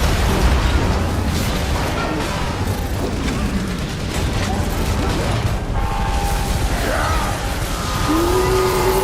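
A dense, continuous pile-up of overlapping sound effects, mechanical clatter and booms, mixed with music. Near the end a held tone and a short gliding pitch stand out.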